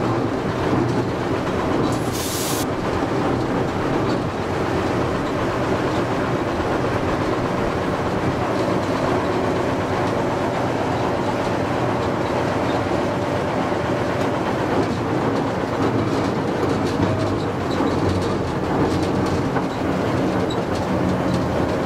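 Ruston & Hornby diesel locomotive running steadily under way, heard from inside the cab, with the wheels clicking over the rail joints. A brief hiss about two seconds in.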